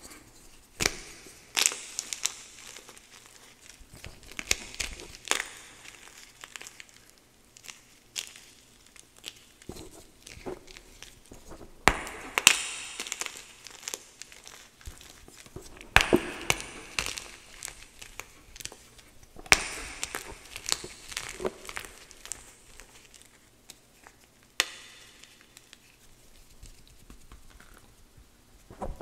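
Dry blocks of gym chalk crunched and crumbled by hand, crackling irregularly, with a few louder snaps as pieces break off and crumbs falling into wet chalk paste.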